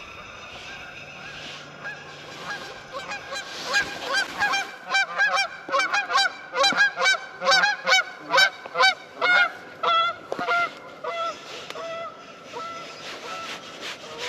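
Geese honking: a rapid series of honks that starts a couple of seconds in, comes about two a second at its loudest, then thins out near the end.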